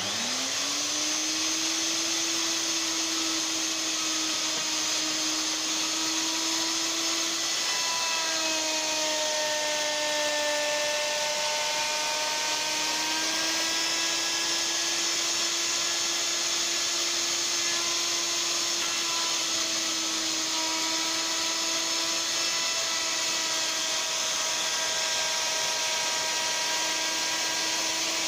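Electric plunge router starting with a quick rise in pitch, then running at full speed with a steady high whine. About eight seconds in, its pitch sags for a few seconds as the straight bit cuts into the pine to rout a mortise, then recovers.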